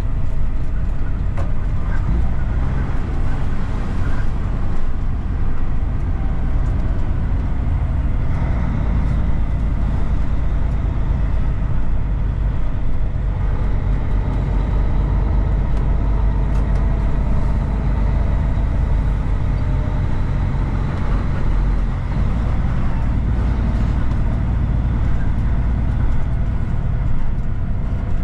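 Heavy truck's diesel engine running at low speed, a steady low drone, as the truck rolls slowly through a parking area.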